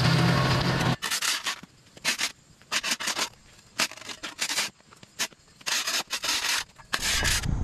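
A tractor engine running for about the first second, then a flat spade scraping and chopping into sod along the edge of a concrete sidewalk in about eight short, separate strokes.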